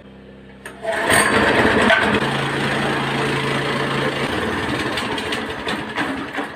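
A 7.5 hp single-cylinder petrol go-kart engine revved up by hand at the throttle lever: it picks up about a second in, runs loud at high revs for around five seconds, and drops back to idle near the end.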